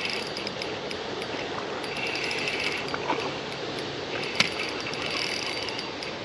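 Spinning reel cranked to wind in a hooked fish, giving a fast, rough mechanical clicking. A single sharp click stands out about four seconds in.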